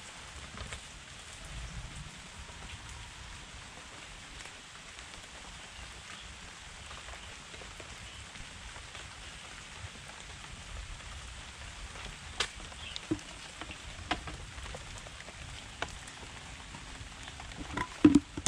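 Steady rain falling on a wet concrete path and surrounding plants. From about two-thirds of the way in come a few sharp knocks, the loudest near the end as a plastic bucket is handled.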